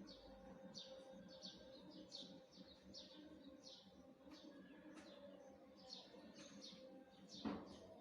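Faint bird chirping: a string of short, high, falling chirps about twice a second over a low steady hum, with a single knock near the end.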